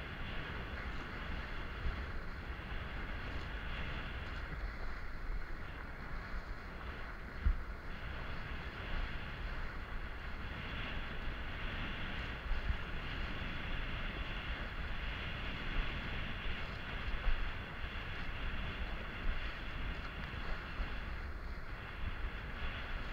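Wind buffeting an action camera's microphone and water rushing under a kiteboard as it rides across chop, a steady rushing rumble. One sharp thump about seven seconds in as the board hits a wave.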